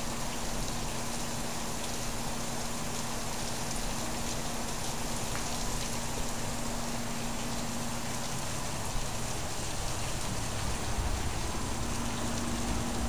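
Heavy rain pouring down, a steady, even hiss of countless drops hitting the ground and surfaces, with a faint steady hum underneath.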